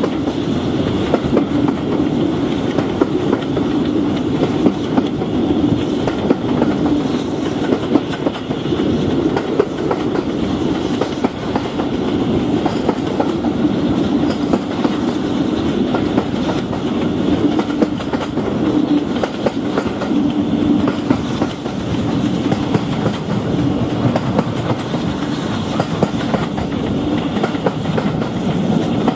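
Steam-hauled heritage passenger train running at speed, heard from an open carriage window: a steady rumble and rattle of the coaches with the wheels clattering over the rail joints.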